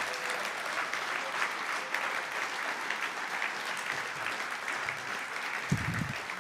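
Audience applauding: dense, steady clapping from a hall full of people, with a brief low thud near the end.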